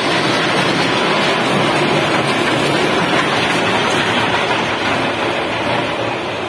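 Children's roller coaster train running along its steel track overhead: a loud, steady rumble of wheels on rail, easing slightly near the end as the cars move away.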